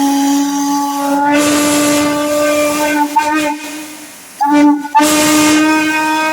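Steam whistle blowing one steady note with a rushing hiss: a long blast, a short break about four seconds in, a brief blast, then another long blast.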